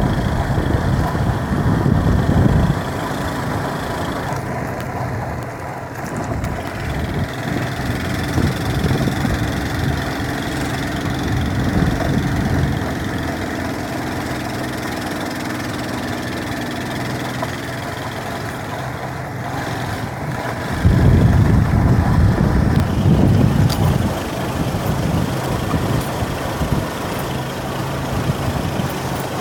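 A motor vehicle's engine running steadily with a low rumble, louder for a couple of seconds at the start and again about 21 seconds in.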